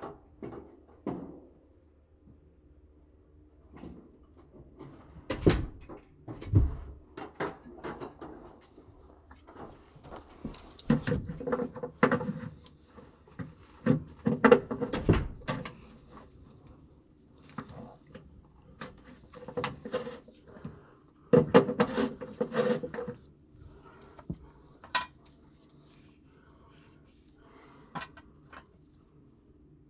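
Irregular metallic clinks, knocks and scrapes of hand tools and metal parts being handled, with busier clusters in the middle and about two-thirds through.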